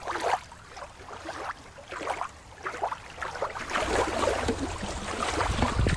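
Water splashing and lapping in short irregular strokes. About four seconds in it grows louder, with a low rumble underneath.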